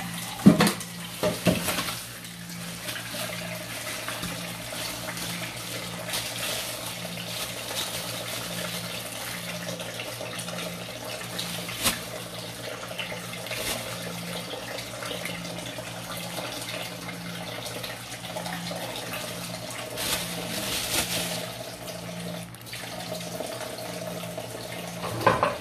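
Water running steadily from a kitchen faucet into a stainless steel sink. A few sudden splashes and knocks come as a plastic bag is handled in the basin, the loudest about half a second and a second and a half in.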